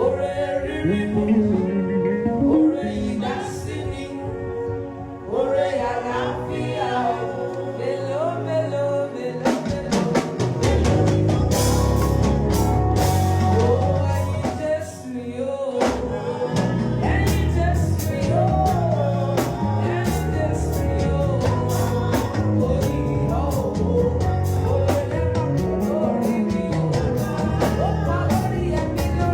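A live band playing with a singer: a voice sings over sustained instrument chords and bass, and a drum kit comes in about ten seconds in and keeps a steady beat.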